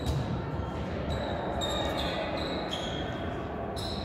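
Sports shoes squeaking on a synthetic indoor court floor: a run of short, high squeaks over the last three seconds, after a single thump at the very start.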